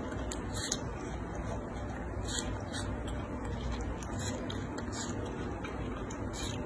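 Baby monkey biting and chewing juicy watermelon flesh: short, crisp, wet crunches, about seven scattered over the few seconds, over a steady low background hiss.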